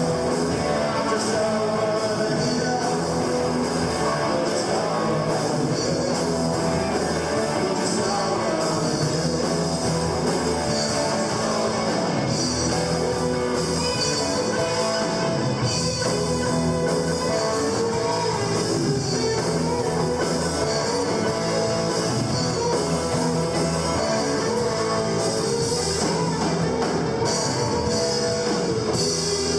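A live rock band playing a guitar-driven rock song at a steady, full volume.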